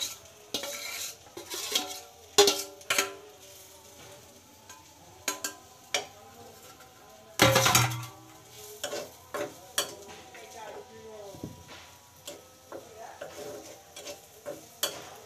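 A metal spoon scraping and clanking against a steel bowl and a steel karahi as cooked curry is scraped into the pan and stirred over the gas flame, with a light sizzle. The clinks come thick at first, there is one loud clatter about halfway through, and after that lighter intermittent clinks of stirring.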